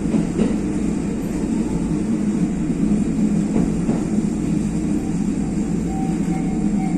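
Diesel railcar running along the line, heard from inside the carriage as a steady low rumble of engine and wheels. A faint high tone comes in near the end.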